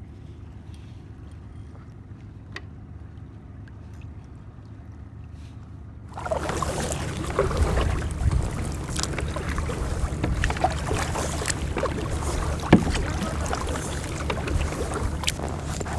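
Fishing kayak on the sea: a faint, steady low hum for the first six seconds, then, suddenly louder from about six seconds in, water sloshing and splashing against the hull with wind on the microphone.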